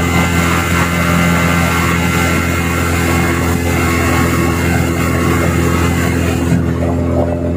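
Yamaha 40 hp outboard motor running steadily at constant speed under power test after its carburetor and diaphragm were cleaned, with a hiss on top that drops away about six and a half seconds in.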